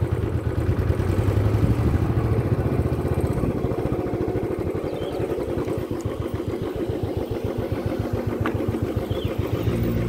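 Royal Enfield Bullet's single-cylinder engine running at low speed with a steady, even beat, easing off slightly about three and a half seconds in.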